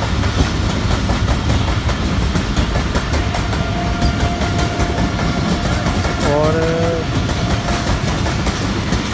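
Passenger train hauled by a diesel locomotive rolling through a station: a heavy low rumble with wheels clattering over the rail joints. A thin steady high tone runs from about four seconds in until near the end, and a short rising call cuts in about six seconds in.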